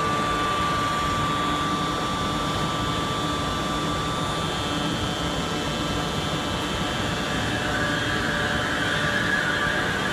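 Kelana Jaya Line LRT train standing at the platform with a steady electrical whine and hum. Near the end a higher whine rises as the train starts to pull away.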